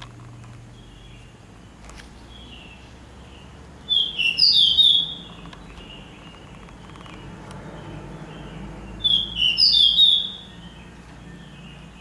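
A small songbird singing two short, loud phrases about five seconds apart, each a quick run of high notes, with fainter chirping from other birds in between.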